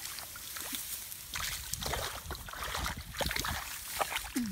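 A hoe chopping into wet mud in shallow water, with irregular squelching and sloshing splashes.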